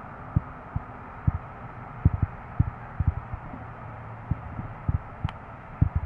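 Irregular low thumps, about a dozen, over a steady hiss on an outdoor microphone, with one sharp click about five seconds in.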